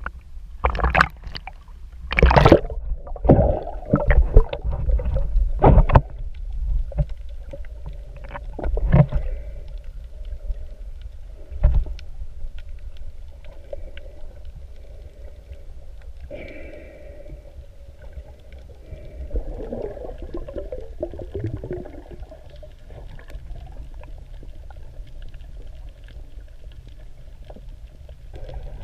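Water splashing and sloshing over an action camera as a snorkeler ducks under at the surface, in loud irregular bursts for the first several seconds. Then muffled underwater sound through the camera housing: a low rumble with faint scattered ticks.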